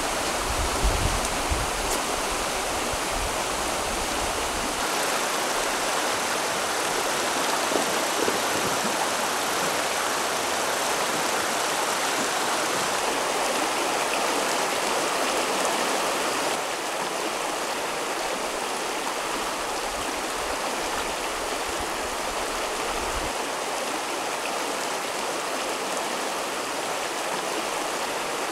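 Shallow stream rushing over rocks in small rapids: a steady hiss of running water. A low rumble sits under it for the first few seconds.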